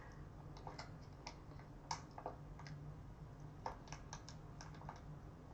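Faint, irregular small clicks and crackles of a plastic spout pouch being squeezed by hand as thick red chili sauce is pressed out onto noodles.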